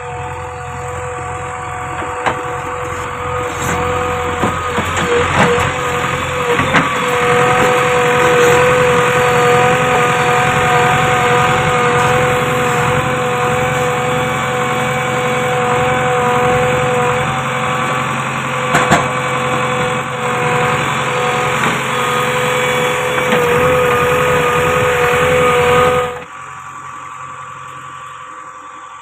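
JCB 3DX backhoe loader's diesel engine running hard with a steady whine while the backhoe arm digs and loads rocks, with a few knocks along the way. About three seconds before the end the sound drops abruptly to a lower level.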